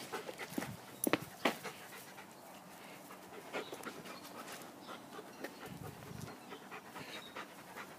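A dog panting faintly, with two sharp clicks a second or so in.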